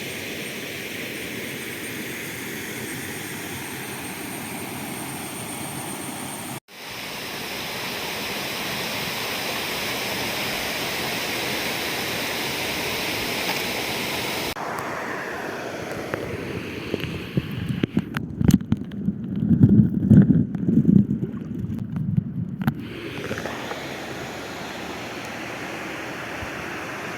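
Steady rush of a small forest waterfall and stream, a hiss spread evenly across the range. Past the middle, the water gives way for several seconds to loud, irregular low rumbling on the microphone.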